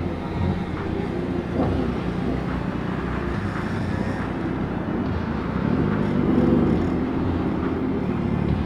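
Yamaha MT motorcycle engine running under way, its pitch rising and falling with the throttle about two-thirds of the way in, over road and wind noise.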